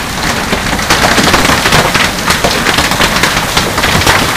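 Heavy hailstorm: hailstones pelting down in a loud, dense, continuous clatter of rapid impacts, striking the concrete pool deck and splashing into the pool water.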